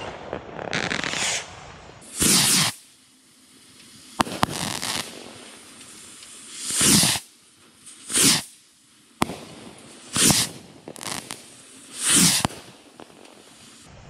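Bottle rockets firing one after another from a fuse-linked rack: a string of short whooshes about every one to two seconds, with sharp pops of the bursts in between.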